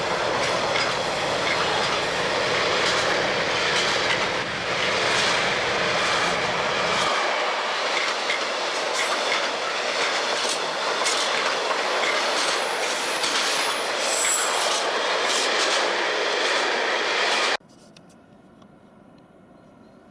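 A long freight train of loaded flat wagons passing close by, its wheels clattering over the rail joints with brief high squeals. The sound cuts off suddenly about three seconds before the end.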